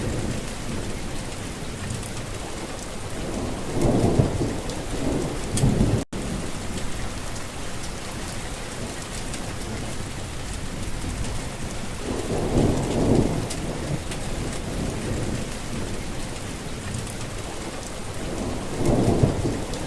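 Steady rain with low rolls of thunder, swelling about four seconds in, around twelve to fourteen seconds in, and near the end. The sound drops out for an instant about six seconds in.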